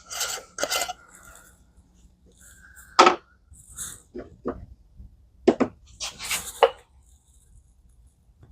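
Scattered rustling, clicks and knocks from handling materials at a workbench, with the loudest sharp knock about three seconds in and a cluster of clicks and rustles past the middle.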